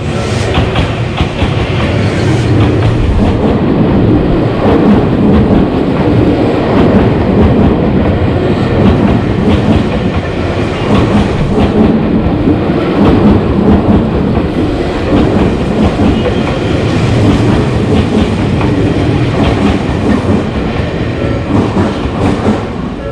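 Train passing close by, its wheels clacking steadily over the rail joints as the cars roll through.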